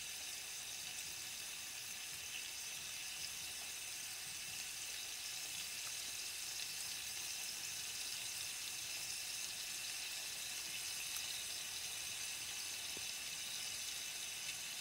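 Faint, steady sizzling hiss of food frying in oil in a pan, with a few small pops.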